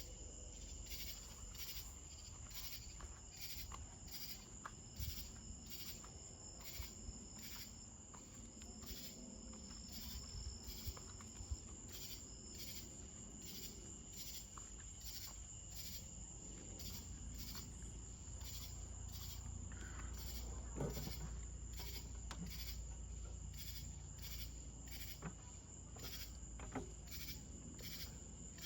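Insects chirping: a steady high trill with shorter chirps repeating about one and a half times a second, over a low background rumble.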